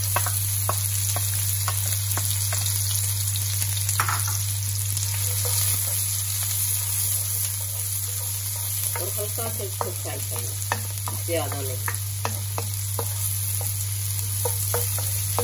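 Sliced onions sizzling in hot oil in a steel wok, stirred with a wooden spoon that taps and scrapes against the pan in irregular clicks. A steady low hum runs underneath.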